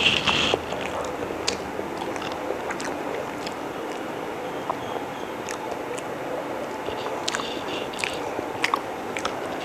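A person chewing a mouthful of chicken biryani, with wet mouth noises and scattered sharp clicks and smacks.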